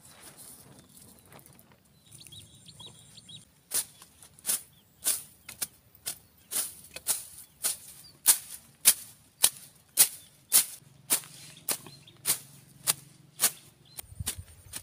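Machete slashing through grass in steady, sharp swishing strokes, about two a second. The strokes start about four seconds in and stop shortly before the end.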